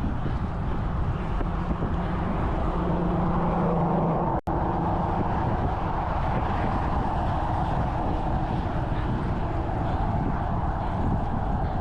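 Steady wind rush on the microphone of a moving road bicycle, with road traffic noise underneath. A low steady hum runs through the first four seconds and ends at a brief dropout in the sound about four and a half seconds in.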